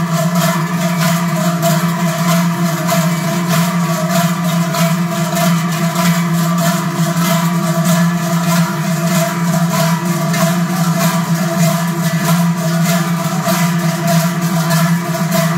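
Many large Swiss cowbells (Treicheln) clanging together in a steady rhythm, about three to four strokes a second, over their sustained ringing.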